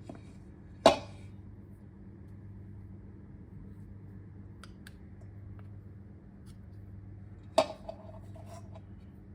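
Two sharp knocks of kitchenware being handled, about a second in and again near the end, the second one with a short ring. A few faint light ticks fall between them, over a steady low hum.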